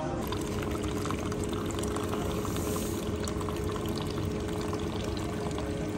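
Automatic coffee machine dispensing a café latte into a paper cup: streams of milk and coffee pouring over a steady hum from the machine.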